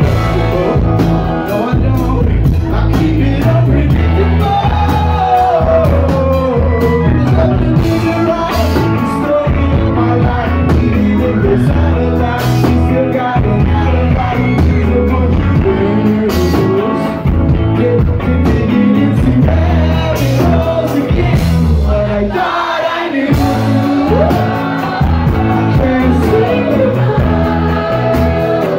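Live rock band playing loud: drum kit, bass and electric guitar under a sung lead vocal, heard from the crowd in a club. The bass and drums drop out for a moment about three quarters of the way through.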